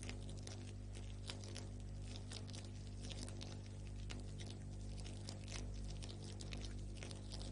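Campfire crackling: irregular small pops and snaps over a steady low hum.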